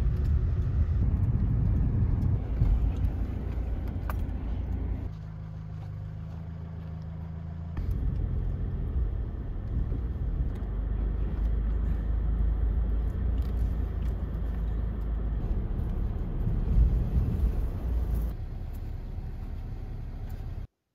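Car driving, heard from inside the cabin: a steady low rumble of road and engine noise. It changes abruptly several times, dropping to a quieter steady hum about five seconds in and returning loud about three seconds later.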